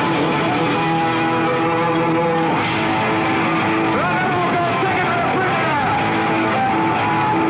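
Heavy metal band playing live, loud and continuous, with electric guitar prominent and notes sliding and bending up and down in pitch.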